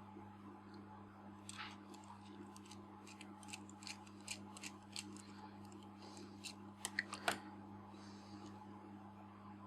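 Irregular small clicks and light taps of tools on small lens parts during reassembly of a Nikkor 50mm f/1.4 lens, with a couple of sharper clicks about seven seconds in, over a steady low hum.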